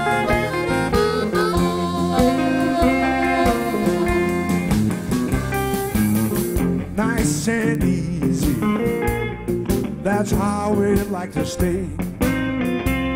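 Live electric blues band playing, with electric guitar, bass, keyboard and drums under a lead line.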